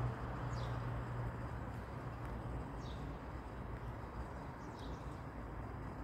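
A bird gives a short, high, falling call three times, about two seconds apart, over steady low outdoor background noise.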